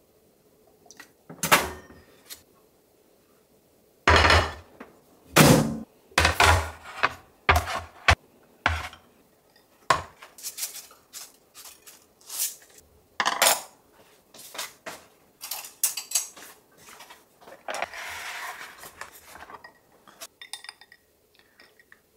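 Dishes, glassware and utensils being handled: a series of separate clinks and knocks as things are set down and moved, loudest about four to six seconds in, with a short rustling stretch near the end.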